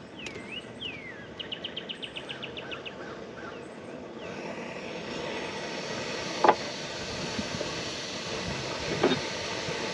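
Birds calling and trilling, then a steady rushing hiss builds from about four seconds in, with two sharp clicks, one past the middle and one near the end: a Jetboil camp stove's gas and push-button igniter being tried in the wind.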